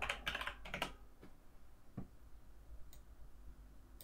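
Computer keyboard and mouse clicks while text is copied: a quick cluster of keystrokes in the first second, then single clicks about a second apart.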